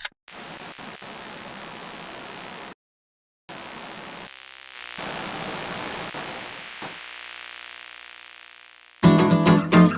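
Static-like white-noise hiss in blocks that cut off abruptly into dead silence, the last stretch slowly fading away. Strummed guitar music starts near the end.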